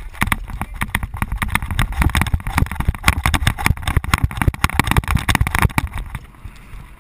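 Unpowered gravity-racer cart (carrilana) rolling over the road, its metal frame and checker-plate floor rattling and clattering rapidly over a low tyre rumble; the rattling eases about six seconds in.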